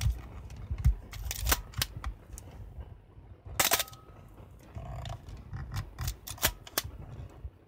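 Canon A-1 film SLR being worked by hand: a series of sharp mechanical clicks from the shutter firing and the film advance lever being wound, with a longer clatter about three and a half seconds in and a quick run of clicks near the end as the lever is cycled.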